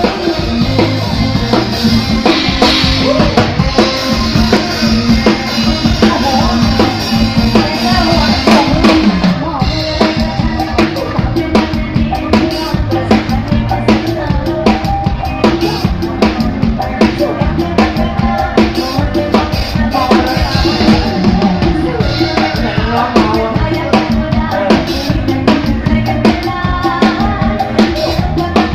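Live band music through a stage PA, with a drum kit close by keeping a steady beat of bass drum, snare and cymbals under keyboards and other instruments.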